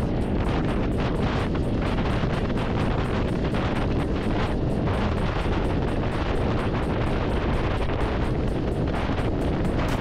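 Steady wind rushing over a motorcycle rider's microphone at riding speed, a dense low noise.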